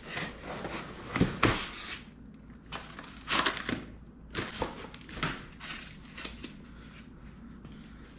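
Unpacking noise: foam packing blocks, cardboard and a plastic bag rustling, crackling and creaking as a crossbow is lifted out of its box. Two sharp knocks come a little over a second in, and the handling dies down over the last couple of seconds.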